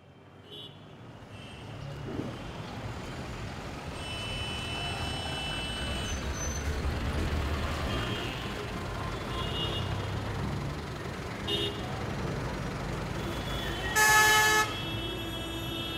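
Street traffic ambience, a low rumble of engines that fades in from silence. Near the end a vehicle horn sounds once for about half a second, the loudest sound, with a few fainter short tones earlier.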